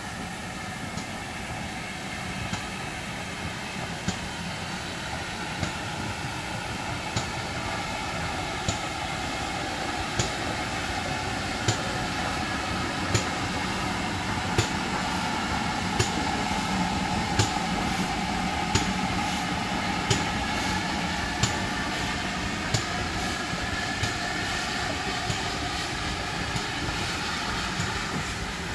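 Steam locomotive 7820 Dinmore Manor, a GWR Manor-class 4-6-0, passes with its train of coaches: a steady rumble that builds as it nears and passes. A sharp click comes about every second and a half, a little faster toward the end.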